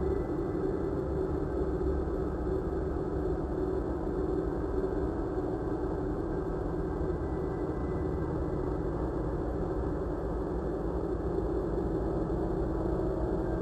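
A steady, unchanging low drone over a deep rumble, with no beat or breaks.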